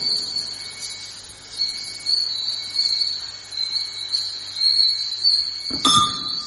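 CNC pipe chamfering machine running with a high, wavering squeal, like a cutter working metal pipe. About six seconds in there is a sharp metallic clank that rings briefly.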